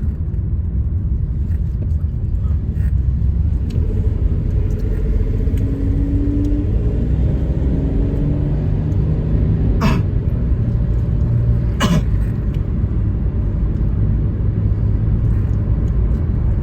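Car cabin noise while driving: the steady low rumble of engine and tyres on the road. A faint hum shifts in pitch partway through, and two sharp knocks come about two seconds apart past the middle.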